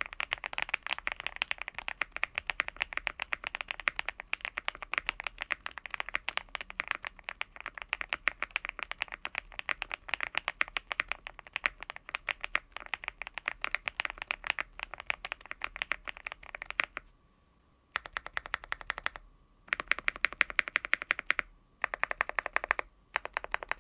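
Typing on a Cidoo V75 Plus mechanical keyboard with Akko Crystal Wine Red switches: fast, continuous keystrokes for about 17 seconds, then a short pause and four shorter bursts of typing.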